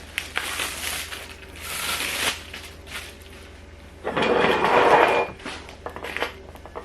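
Flat-pack chair parts being handled during assembly: scattered knocks and clicks, with a louder rustle lasting about a second near the middle.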